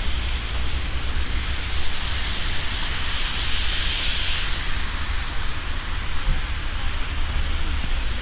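Wind buffeting the microphone with a steady rumble, over a steady hiss of falling snow and sleet. The hiss swells briefly about three to four seconds in.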